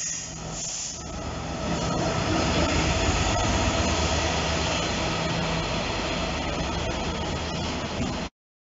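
Class 66 diesel freight locomotive, with its two-stroke V12 engine, running through a station, then the rumble of its freight wagons rolling past. The sound swells as the locomotive passes about two seconds in and cuts off abruptly near the end.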